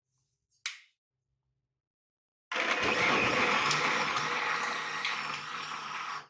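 A short click, then an electric blender starts about two and a half seconds in and runs steadily, grinding soaked apricots into a paste, before cutting off abruptly at the end.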